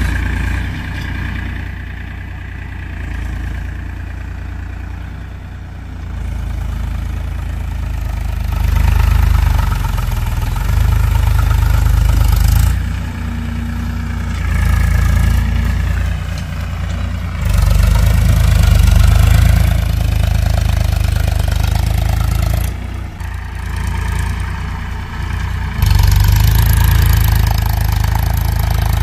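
Powertrac Euro 50 tractor's diesel engine running under load as it pulls a tine cultivator through the soil. The engine grows louder and softer several times as it works.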